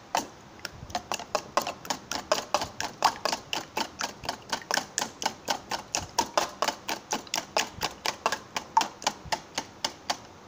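Wire whisk beating raw eggs in a plastic bowl, its wires clicking against the bowl in a quick, steady rhythm of about four or five strokes a second.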